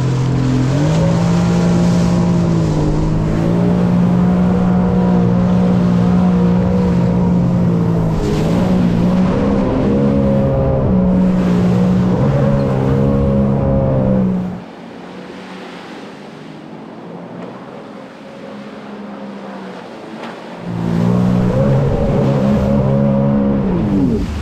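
Sea-Doo Explorer Pro jet ski engine revving up and down through tight donut turns, with the hiss of the jet spray. About 14 seconds in the throttle comes off and it goes much quieter for about six seconds, then it revs up again near the end.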